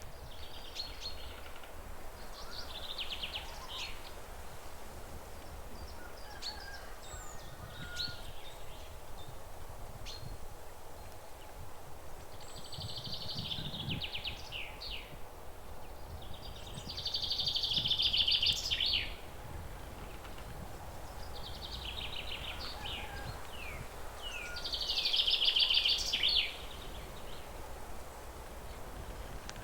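A songbird singing the same short phrase over and over, every few seconds: each phrase is a fast, buzzy trill ending in a few quick down-slurred notes, the loudest two coming about two-thirds of the way in and near the end. A faint steady outdoor rumble sits underneath.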